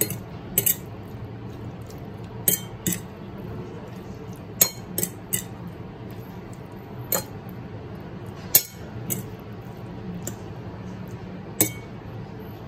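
Metal fork clinking and scraping against a ceramic plate at irregular intervals while tossing soba noodles.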